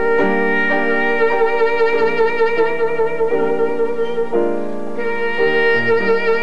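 Saxophone playing a slow melody in long held notes, some with vibrato, accompanied by piano chords.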